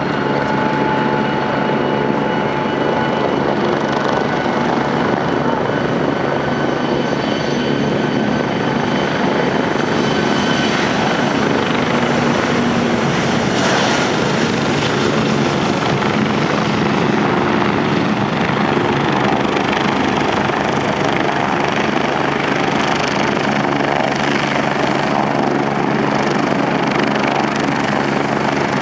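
Mitsubishi MRJ regional jet's Pratt & Whitney PW1200G geared turbofan engines running loudly, a continuous roar with high whining tones that slowly drop in pitch over the first ten seconds or so as the aircraft moves away.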